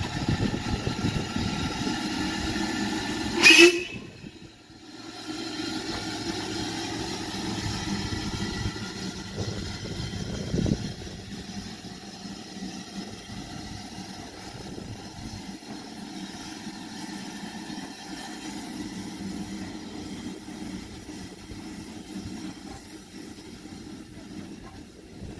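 Ivatt Class 2 2-6-2T steam tank locomotive moving off with its coaches, its running sound growing quieter as the train draws away. A short, very loud blast about three and a half seconds in.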